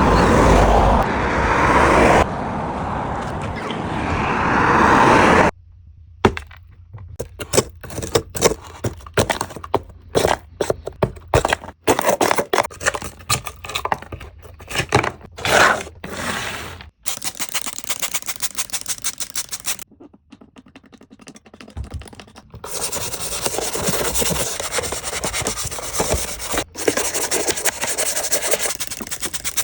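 Scraping and scrubbing on a mud-caked plastic toy as it is cleaned, in a series of separate takes. It starts with a steady hiss lasting about five seconds, then comes a stretch of irregular scraping strokes, and near the end a fast, even scrubbing rhythm.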